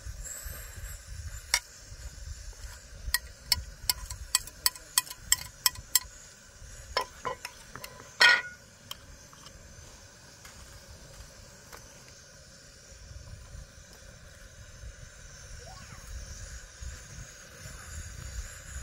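Metal utensil clinking against cookware: a quick run of light clinks, about three a second, then one louder ringing clink about eight seconds in, over low wind rumble on the microphone.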